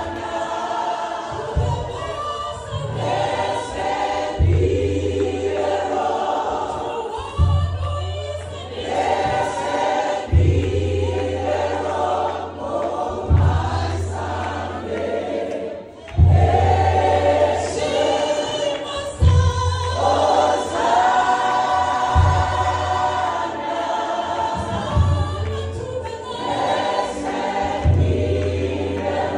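Live gospel worship song: a congregation and worship team singing together in a choir, over a band with low bass notes that come and go every second or two.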